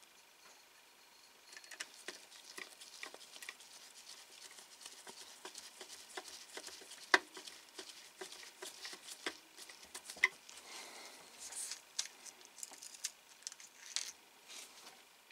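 Small screwdriver working tiny screws into a scale model car's engine-bay panel, with light irregular clicking and scratching as the screws and parts are handled; two sharper clicks about seven and ten seconds in.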